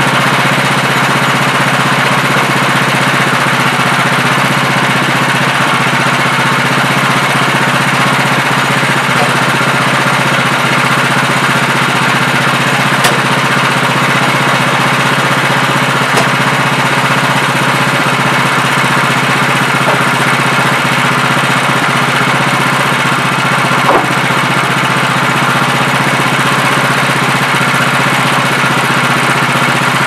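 Air-cooled gas engine of a Woodland Mills portable band sawmill running steadily, with a few light ticks.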